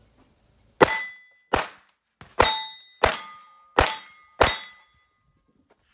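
Six rimfire pistol shots, each about two-thirds of a second to a second apart. Five of them are followed by a steel target plate clanging and ringing briefly; the second shot brings no ring.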